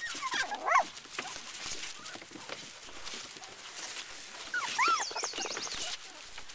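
Cockapoo puppies whimpering in high, wavering whines, one short burst right at the start and another about four and a half seconds in, over a light rustle of shredded paper.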